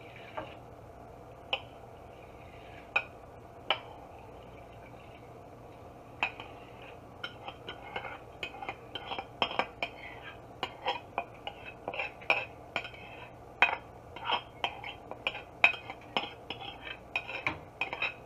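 A metal spoon scraping and clinking against a china bowl as basmati rice is scraped out into a pot of water. A few single clinks at first, then a quick, irregular run of scrapes and taps from about six seconds in.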